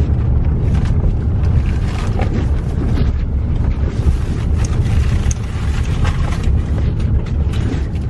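Steady low rumble of a car driving along the road, engine and tyre noise heard from inside the cabin, with a few small knocks.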